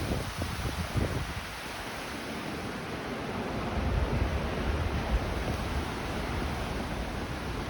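Storm surf rushing and breaking in strong, gusty Jugo wind, the gusts buffeting the microphone with low rumbles now and then.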